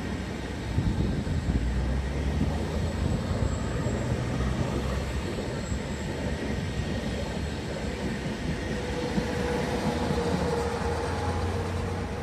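Double-deck regional passenger train, pushed by an E464 electric locomotive at its rear, rolling past with a steady rumble of wheels on rails. In the last few seconds, as the locomotive goes by, a steady hum comes in.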